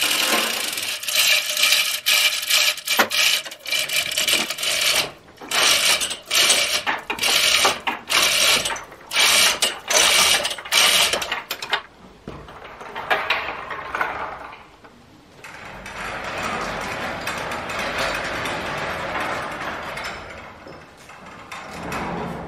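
Chain hoist with its chains clattering and ratcheting in quick irregular bursts as the helicopter is hoisted. About halfway through this gives way to softer, steadier rustling noise.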